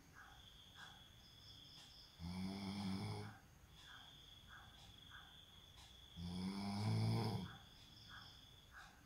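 A man snoring in his sleep: two low-pitched snores about four seconds apart, each lasting about a second, with faint clicks in the pauses between breaths.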